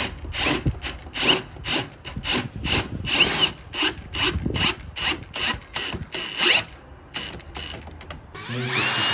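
Hilti SF 6H-A22 cordless hammer drill: a rapid series of short, sharp mechanical bursts, about two to three a second. Then, near the end, the motor spins up with a rising whine and runs steady.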